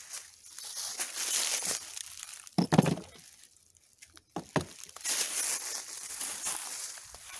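Dry leaves crackling and rustling underfoot, with a loud knock of old brick against brick about two and a half seconds in and two smaller knocks a little later as bricks are set into a pickup truck bed.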